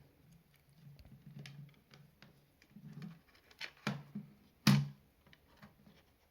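Light clicks and knocks of a mini PC's opened case and bottom panel being handled, with two sharper knocks in the middle, the second the loudest.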